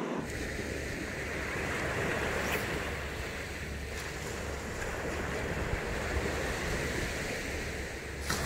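Small surf waves washing onto a sandy beach, a steady rushing hiss, with a low rumble of wind on the microphone.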